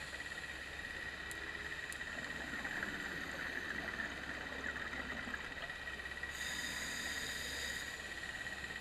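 Underwater ambience of a reef dive picked up by the camera: a steady high-pitched tone under a fine crackling, with a brief brighter hiss about six seconds in that lasts just over a second.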